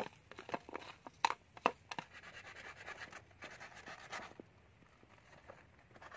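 Hands mixing spiced crab and snail pieces on a plate: a run of sharp clicks and scratches, loudest about a second in. Then softer rustling as a knife cuts a banana leaf.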